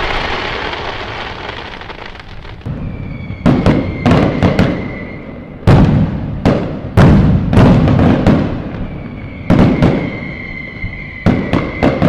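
Fireworks going off: a crackling fade from an earlier burst, then sharp bangs in quick clusters of two to four, each trailing off briefly. A steady high whistle sounds beneath some of the bangs.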